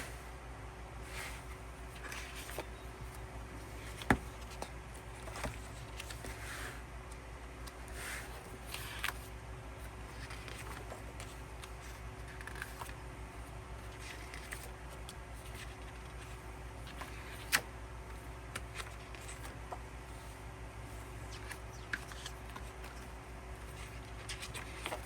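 Album photo cards and paper inserts being handled and flipped: faint rustles and soft taps, with two sharper clicks about four seconds in and again past the middle, over a steady low hum.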